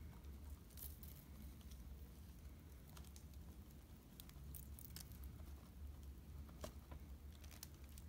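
Faint, light clicks and ticks of a small gold-tone handcuffs charm and its fine metal chain being handled between fingers, a few scattered clicks over a low steady hum.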